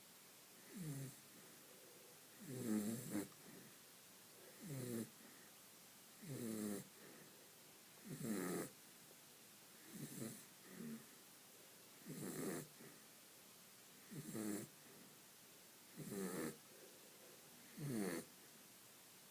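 A West Highland white terrier snoring in its sleep, about ten snores at a steady rhythm of roughly one every two seconds, each one dropping in pitch.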